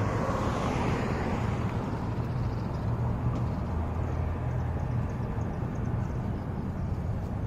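A car passing close by on the street, its tyre and road noise fading away over the first couple of seconds, over a steady low rumble.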